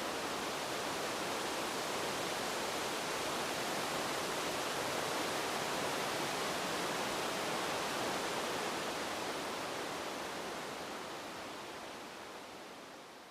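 Wind blowing as a steady, even rush, easing off over the last few seconds.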